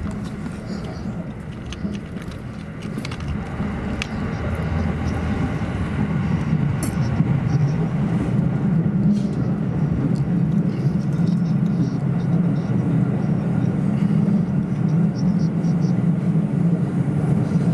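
JR East E217 series electric train running on the line, heard from inside the carriage: a steady low rumble of wheels on rails, growing louder over the first several seconds and then holding steady.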